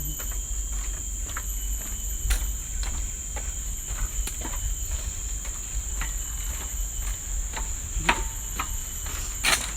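Steady high-pitched drone of forest insects, one unbroken buzzing tone, with scattered light knocks and crunches of footsteps on the trail; the loudest knock comes near the end.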